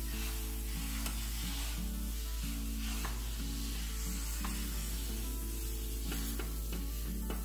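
Fermented white teff batter sizzling on a hot electric griddle as the back of a ladle spreads it outward in circles. Background music with a stepped melody runs underneath.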